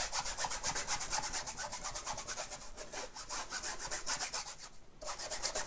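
Long-bristled flat hog-bristle brush scrubbing quickly back and forth across canvas, laying a thin wet wash of gamsol-thinned yellow ochre oil paint. The strokes come several a second, with a short pause about five seconds in.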